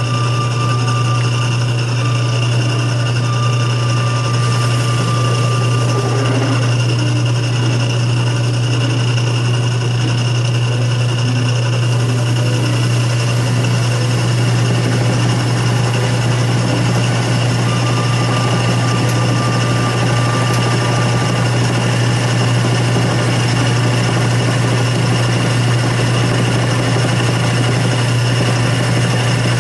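Atlas 6 lathe running steadily under power: a strong, even motor hum with a whir from the drive. A thin high tone sounds for about the first six seconds and again for a few seconds around two-thirds of the way through.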